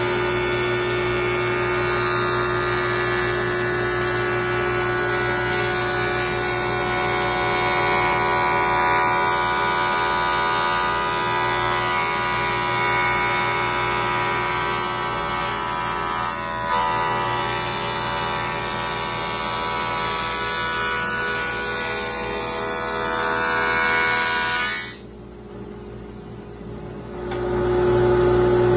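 A woodshop jointer's motor and cutterhead running with a steady whine. The sound cuts out abruptly for about two seconds near the end, then returns.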